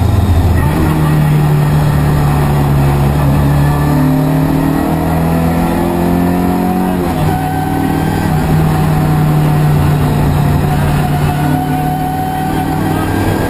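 Fiat 131 Group 2 rally car's engine pulling hard at speed. Its pitch climbs for several seconds, drops about seven seconds in at a gear change, then climbs again.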